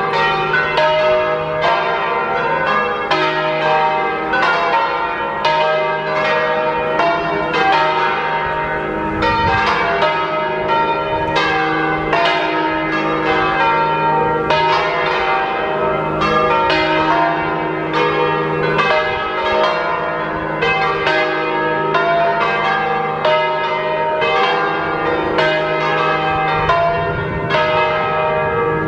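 Six bronze church bells in a tuned E-flat major set (the heaviest a slightly flat E-flat), cast by Mazzola in 1901 and Vallino in 1870, all swinging together in a full peal. Their strokes overlap continuously, each note ringing on beneath the next.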